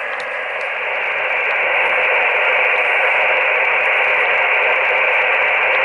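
Shortwave static hiss from an Icom IC-718 HF transceiver's speaker, receiving upper sideband on 5330.5 kHz in the 60-metre band with no station on the frequency. The hiss is squeezed into a narrow voice-width band by the receiver's filter and gets a little louder about a second in.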